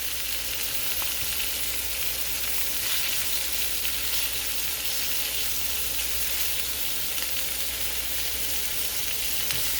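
Salmon fillets frying in butter in a skillet over medium heat: a steady sizzle that stays even throughout.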